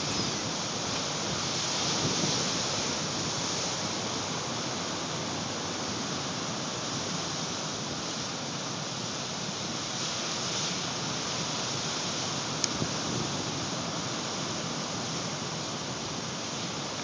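Stormy Atlantic surf after a nor'easter: a steady rush of breaking waves mixed with wind, swelling a little now and then, with one short click about three-quarters of the way through.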